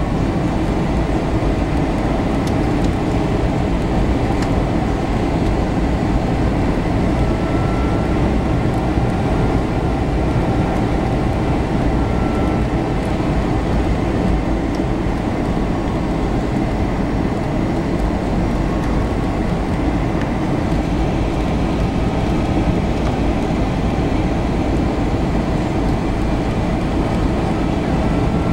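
Cabin noise of an Airbus A321 airliner on final approach: a steady rush of engine and airflow noise, with a faint high whine that comes and goes.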